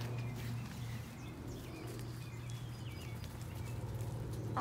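Faint, scattered short calls from a flock of chickens over a steady low hum.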